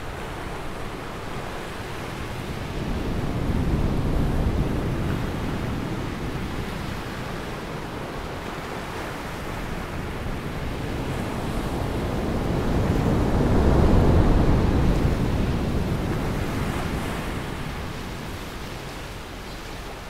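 Ocean waves breaking and washing up a sandy beach, a steady rush with two slow swells: one wave about four seconds in and a louder one a little past the middle.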